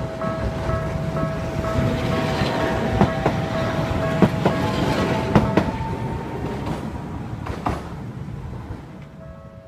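Tokyu Setagaya Line train passing over a level crossing: a building rumble with a handful of sharp wheel clacks over the rail joints through the middle, then fading away near the end.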